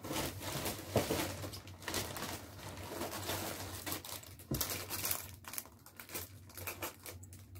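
Clear cellophane wrapping crinkling and rustling as it is handled and lifted from a cardboard box, with a soft thump about four and a half seconds in.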